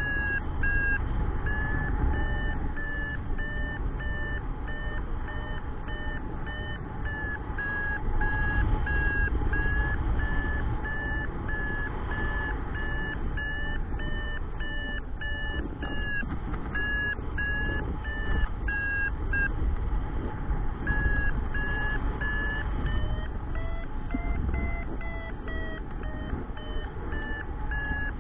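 Paragliding variometer beeping in short, even pulses, about two a second: the climb tone that signals the glider is rising in lift. Wind rushes over the microphone underneath.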